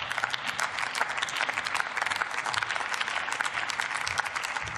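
Members of parliament applauding: many hands clapping in a steady, dense patter.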